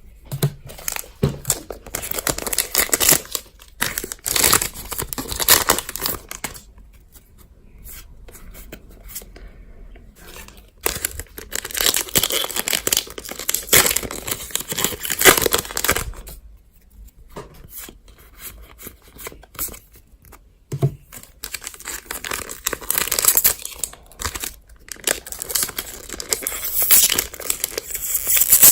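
Foil Pokémon card booster packs being torn open and their wrappers crinkled, in several spells of tearing and rustling with quieter pauses between.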